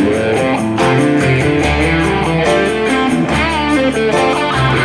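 Instrumental break in a rock song: an electric guitar plays a lead line over the band, with notes bent and wavering in pitch partway through.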